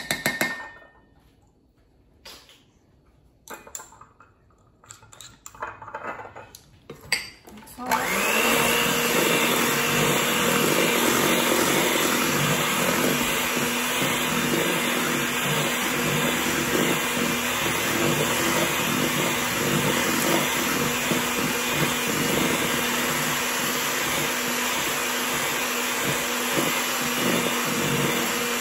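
A few light clinks and knocks, then about eight seconds in an electric hand mixer switches on and runs steadily, its beaters whirring through lemon bar filling of eggs, sugar, flour and lemon juice in a stainless steel bowl.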